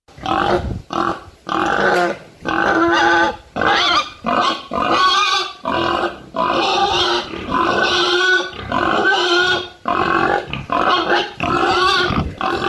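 Domestic pig grunting and oinking, a steady run of short calls about two a second.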